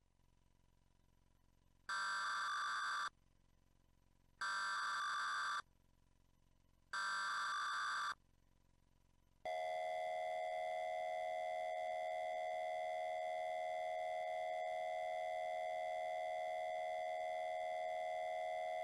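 Emergency Alert System tones, pitched down: three identical bursts of the digital SAME data header about 2.5 s apart, then the steady two-tone attention signal, beginning about halfway through. This is the alarm that opens a tornado warning broadcast.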